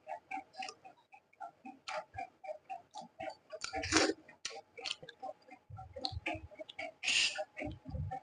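Close-up mouth sounds of someone chewing rice and curry: quick wet smacking clicks, several a second, with a louder slurp-like burst about four seconds in and again near seven seconds.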